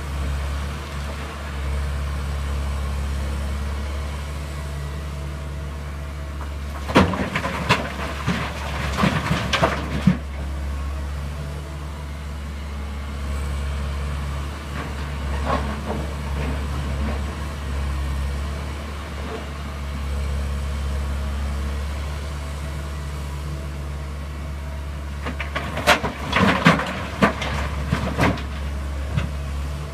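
Rock blocks dropped by a Komatsu PC188MR excavator into the steel tipper body of a Volvo FMX dump truck: two bouts of loud clattering impacts, about seven seconds in and again near the end, with a lighter knock midway. Under them the diesel engines run with a steady drone.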